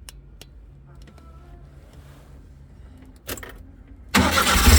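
Daewoo Labo's three-cylinder engine cranked on the starter from about four seconds in, after a click. It does not run properly, the no-start fault unchanged with the newly fitted MAP sensor.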